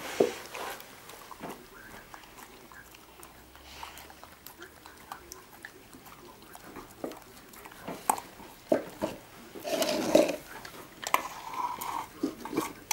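Border collie puppies eating: chewing and biting at their food, with many small scattered clicks and knocks, busiest about ten seconds in.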